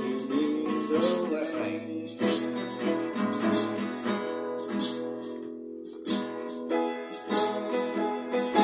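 Slow country-ballad music between sung lines: acoustic guitar strumming with a shaker-like rattle on the beat, after a held sung note that fades out about two seconds in.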